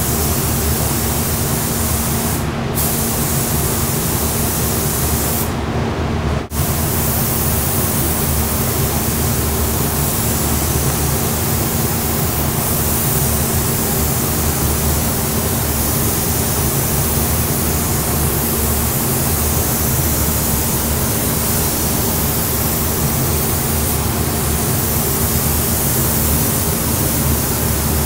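Gravity-feed spray gun hissing steadily as compressed air sprays clear coat onto a car door panel. The upper hiss drops out briefly twice in the first seven seconds.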